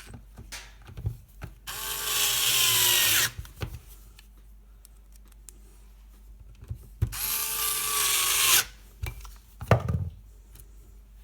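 Power drill with a T15 Torx bit driving two screws back into a dishwasher's sump assembly: two runs of about a second and a half each, the motor's whine dropping in pitch as each screw seats. A short knock follows the second run.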